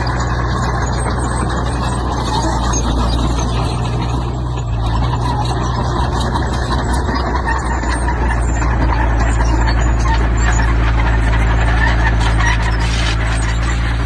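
Heavy earthmoving machinery at work: a steady diesel engine drone with grinding, clattering noise over it that grows busier about halfway through.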